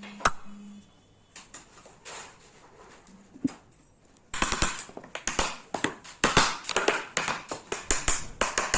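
A single sharp click near the start and a few scattered knocks, then from about four seconds in a quick, irregular run of taps and clicks.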